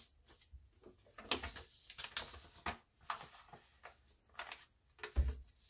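A sheet of paper being folded in half by hand, its crease pressed flat against a countertop: irregular soft rustles and small crinkles, with a low thump near the end.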